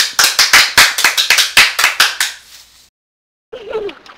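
Hands clapping in quick, irregular applause, about six claps a second, fading out after about two and a half seconds. A short, quieter sound follows near the end.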